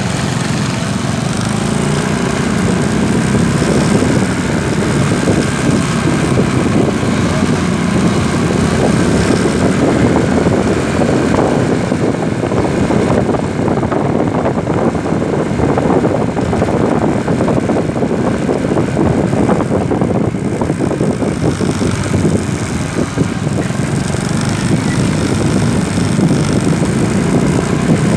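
Small motorcycle engine running steadily while riding along a street, its drone mixed with road noise.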